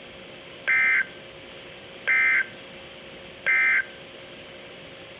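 Emergency Alert System end-of-message code: three short, identical bursts of warbling SAME digital data tones, about 1.4 seconds apart, marking the end of the broadcast alert.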